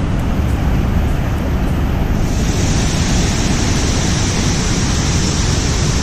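Waterfall rushing: a steady, dense wash of falling-water noise. About two seconds in, a steady high hiss joins it.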